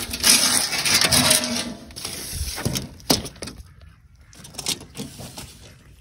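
Corrugated tin roofing sheets being lifted and shifted over one another: a loud metallic rattling and scraping for about the first two seconds, then a few separate clanks.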